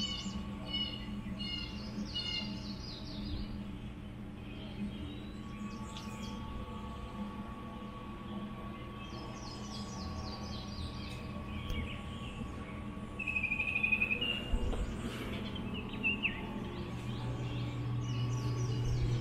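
Wild birds singing outdoors: several runs of quick, high chirping notes and one short clear whistle about two-thirds of the way through. A steady low hum runs underneath.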